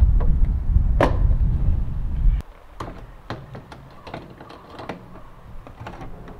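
Light knocks and taps as a plexiglass quarter window is handled and pressed against a seaplane's turtle deck, with one sharp snap about a second in. A heavy low rumble underneath cuts off suddenly about two and a half seconds in.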